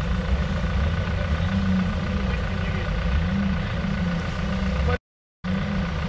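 Off-road vehicle engine running steadily at low speed, a low rumble. The sound cuts out completely for about half a second near the end.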